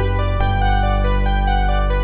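Background music: a keyboard melody of steady stepping notes over held bass chords, with the chord changing about half a second in.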